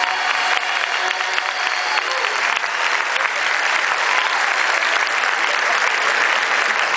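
Large audience applauding in a big hall, the last held notes of the song fading out just at the start and the clapping growing fuller after about two seconds.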